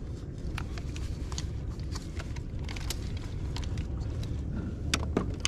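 Steady low rumble with scattered light clicks and taps as fishing line and tackle are handled in a kayak, more of them near the end.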